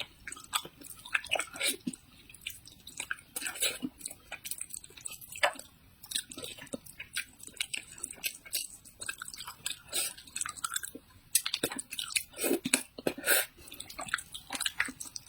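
A person chewing food close to the microphone, with many irregular short wet clicks and smacks of the mouth.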